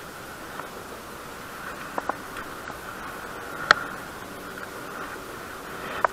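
Steady hiss of wind on the microphone, with a few sharp clicks and taps from handling a fishing rod and baitcasting reel. Two clicks come close together about two seconds in, the loudest a little past halfway, and another near the end.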